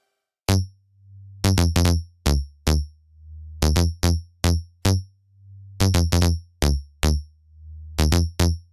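Xfer Serum software synthesizer preset playing a repeating electronic riff: short, bright plucked notes that die away quickly, each with a crisp click at the attack, over a deep sustained bass note. It starts after a brief silence about half a second in, as a new preset comes in.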